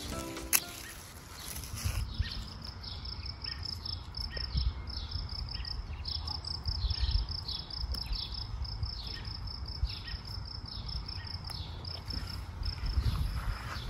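An insect chirping in a steady, rapid, high-pitched pulse that starts about two seconds in and stops near the end. Under it are a low rumble and the rustle of lettuce leaves being picked by hand.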